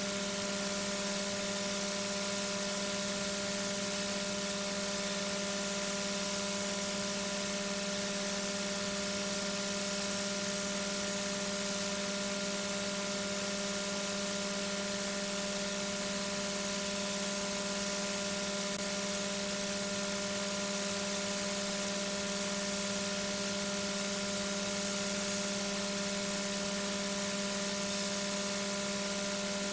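Steady electrical hum with several fixed tones over an even hiss, the constant background noise of a nest-box webcam's audio feed.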